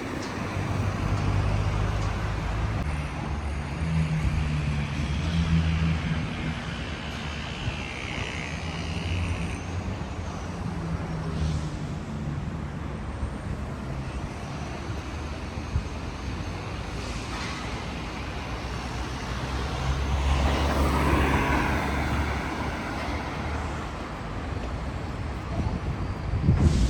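Road traffic: a steady engine hum with vehicles driving past, swelling loudest twice as they pass.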